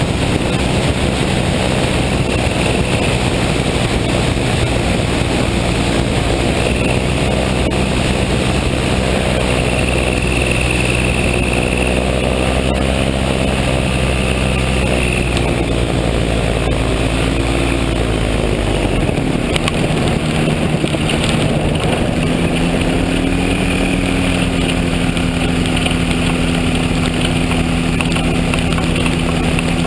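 Magni M18 gyrocopter's engine and pusher propeller running steadily during a landing, with wind noise over the microphone. About two-thirds of the way in, the engine note drops and settles into a steady lower idle as the aircraft rolls out on the grass.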